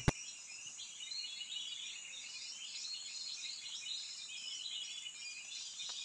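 Faint tropical forest ambience: a steady, high chorus of birds and insects chirping.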